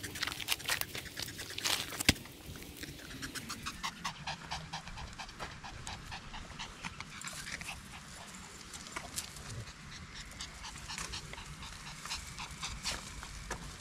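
A small dog panting quickly and evenly, open-mouthed, with one sharp click about two seconds in.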